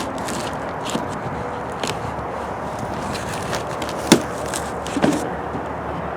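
A few scattered knocks and rustles from handling and opening the cardboard shipping box of a new RV window. The loudest knock comes about four seconds in, over a steady background noise.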